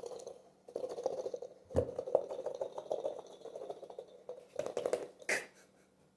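Hands squeezing and working a sticky rubber squishy toy: a dense crackle of small squishing and sticking noises, with a heavier thump about two seconds in.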